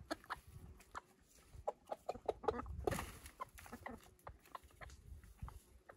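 Chickens clucking softly in short, separate calls, mixed with scattered light clicks and knocks.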